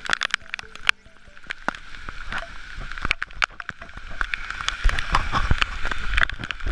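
Wet splashing and sloshing from a bicycle ridden in the rain, with scattered sharp clicks and knocks, growing louder and picking up a low rumble in the second half. Faint background music dies away in the first second and a half.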